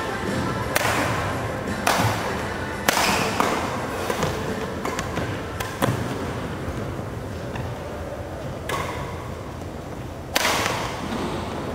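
Badminton rackets striking a shuttlecock during a rally: sharp cracks, several about a second apart early on, then one near the middle and a loud one near the end, each trailing off in the echo of a large sports hall.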